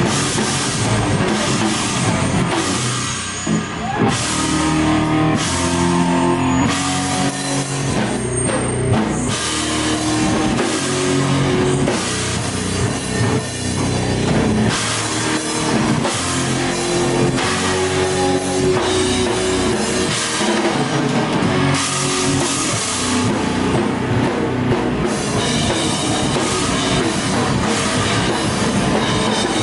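Live rock band playing loud, heavy music: drum kit with crashing cymbals, heard from right beside the kit, under repeated riffs from electric guitar and bass.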